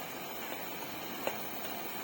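Kerosene pressure lantern burning, its pressurised burner giving a steady hiss. Faint short clicks come about every three-quarters of a second.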